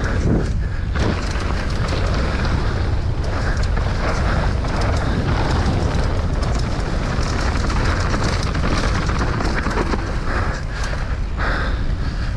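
Mountain bike ridden fast down a trail: steady wind buffeting the microphone, with the rattle and many short knocks of the tyres and bike over rough ground.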